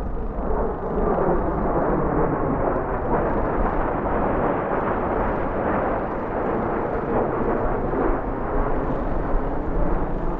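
Jet noise from B-1B Lancer bombers passing overhead, their General Electric F101 afterburning turbofans producing a loud, steady rushing rumble.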